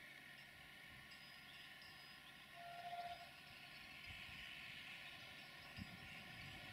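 Faint, distant running of a passenger train moving away along the track. A short steady tone sounds about three seconds in.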